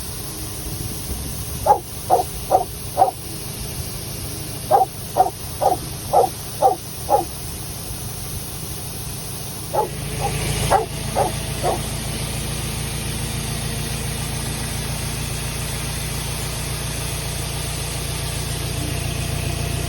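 A dog barking in three runs of quick barks over a steadily running farm engine; the engine grows louder about ten seconds in and keeps running.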